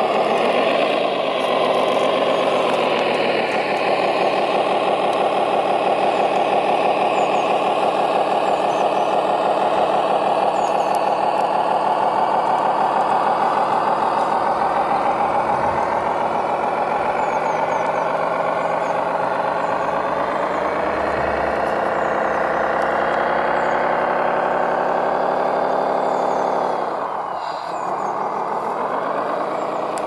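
Radio-controlled 6x6 truck running under load as it pulls a gravel-loaded dump semi-trailer: a steady mechanical drone with many overtones that briefly dips and comes back near the end.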